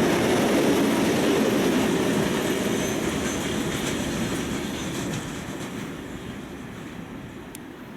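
Freight train wagons rolling past on the rails, a dense rumble with some clickety-clack that fades steadily as the train moves away.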